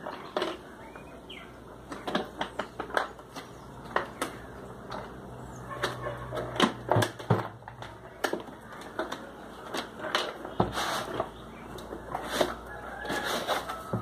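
Unboxing handling noise from a cardboard box and the hard plastic carry case of a mini grinder kit. There are irregular knocks and taps as the box is turned and set down, and scraping rustles as the case slides out of the box.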